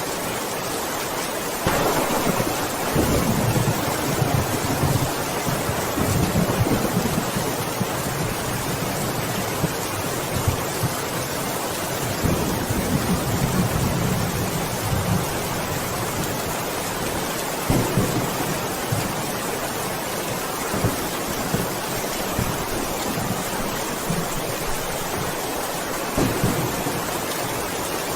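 Steady rain falling hard, with low thunder rolling in several times: long rumbles about 2 seconds in and again around 12 seconds, and shorter ones later.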